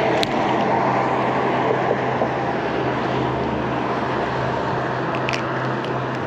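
A steady engine drone under a constant rush of wind noise, fading slightly, with a few light clicks.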